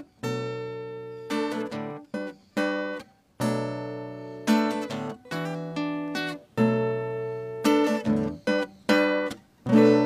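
Acoustic steel-string guitar strumming the closing chords of a song, with no singing. Each chord is struck and rings briefly before it is cut short, with short breaks between them.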